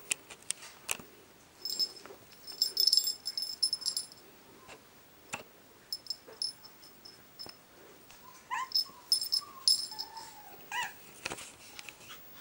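A small jingling toy rattles in several short bursts while a Chihuahua puppy plays, with scattered light knocks and a few short high squeaks near the end.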